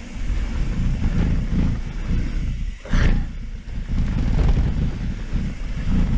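Wind buffeting the microphone as a mountain bike rides down a dirt downhill trail, with a sharp knock about three seconds in.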